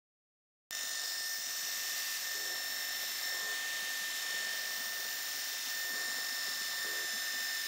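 Grizzly G0704 CNC mill's spindle running at 2500 rpm while a 3/8-inch 90° spot drill spots holes in an aluminium block: a steady high whine with hiss, starting abruptly less than a second in.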